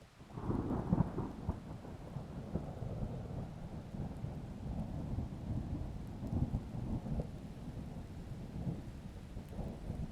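Thunder: a sharp crack about half a second in, then a long low rolling rumble with repeated crackles that eases off near the end.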